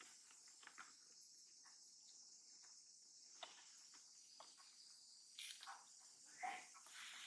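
Faint, steady high-pitched insect chorus, with a few brief soft sounds about five and a half and six and a half seconds in.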